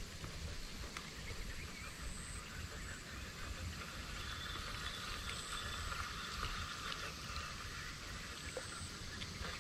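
Steady outdoor background of a wildlife chorus with a low rumble underneath, and a faint high buzz that comes and goes three or four times.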